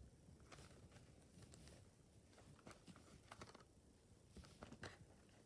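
Near silence with a few faint clicks and rustles from a plastic Blu-ray case being picked up and turned over in the hand.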